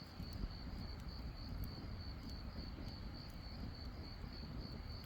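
An insect, cricket-like, chirping in a high, evenly pulsing trill, over a low rumbling noise.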